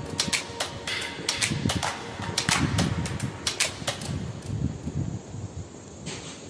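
Footsteps on a paved path: sharp clicks and dull knocks, a few a second, thinning out after about four seconds.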